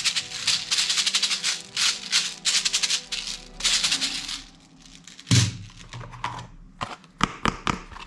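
Small gold plastic toy hand grenade rattling in quick bursts as it is shaken by hand, for about four and a half seconds. Then one thud as something is set down, and a few light plastic clicks and knocks, over background music.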